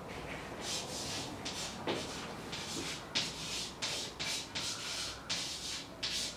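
Chalk scratching on a chalkboard as words are written: an irregular run of short, scratchy strokes, two or three a second.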